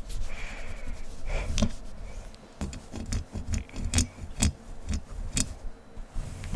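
Fingernails scratching and rubbing fast on a microphone, with a scratchy rustle over a low rumble and several sharp taps and clicks at irregular moments.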